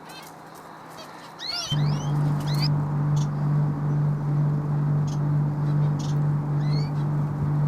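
Small birds chirping, then about two seconds in a loud, steady low drone starts and holds, drowning out the faint chirps that follow.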